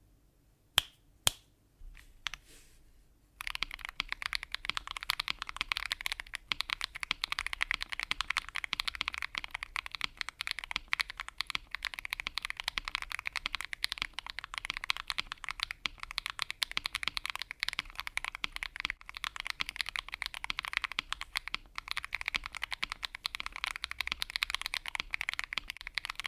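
Fast, continuous typing on a Keychron Q2 Pro mechanical keyboard with lubed Akko Ocean Blue switches and cherry-profile PBT keycaps, foam-, tape- and polyfill-modded. A few separate clicks come first, and the steady run of keystrokes starts about three and a half seconds in.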